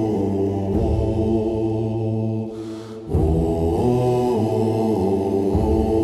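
Dark Nordic-style war music: low chanting voices held on long notes. The music thins briefly about halfway through, then comes back in full.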